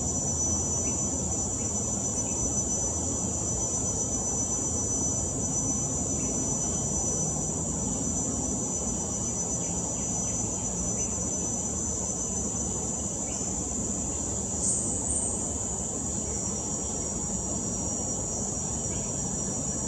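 Steady high-pitched drone of insects, unbroken throughout, over a low steady rumble.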